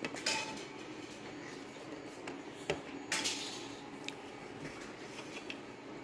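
A few sharp clicks and clatters of hand tools and a plastic refrigerator bracket being handled on a workbench, with a brief scrape about three seconds in.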